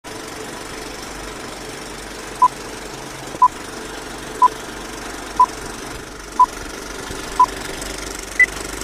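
Old film-leader countdown effect: a steady film projector running, with a short beep once a second, six in all, then one higher-pitched beep near the end.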